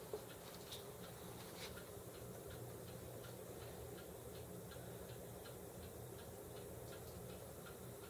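The motor-driven rotating tower of a Zippo lighter display case turning, with faint regular ticking about two to three times a second over a low steady hum.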